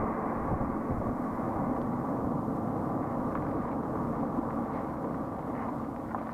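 BMW E46 323ci's stock exhaust from its 2.5-litre straight-six, a steady drone at the tailpipes while the car drives at an even pace, mixed with road rush.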